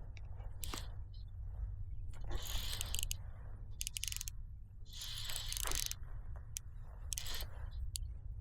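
Fishing reel worked in four short bursts of mechanical whirring and clicking while a fish is played, over a steady low rumble.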